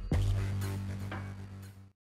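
Electronic background music with a steady low bass note and one last beat just after the start, fading out to silence near the end.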